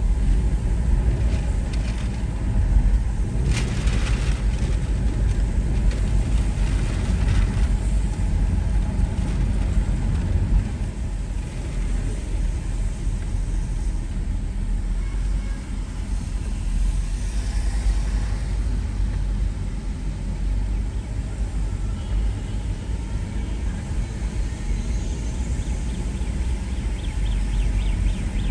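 Car driving along a rain-wet road: a steady low rumble of engine and tyres.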